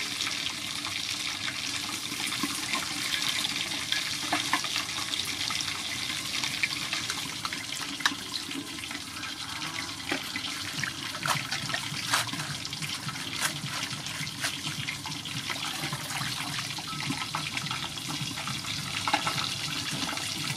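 Water splashing and sloshing in a stainless steel bowl as vegetables are washed by hand, with many small sharp splashes and drips over a steady watery hiss.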